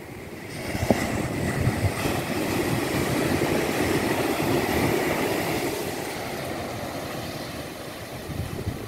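Waves breaking on a sand beach, the surf's rush swelling about half a second in and easing off after about six seconds.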